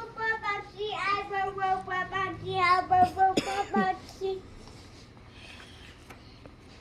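A child's voice singing a run of short, wordless sung syllables at a fairly steady high pitch for about four seconds, then stopping.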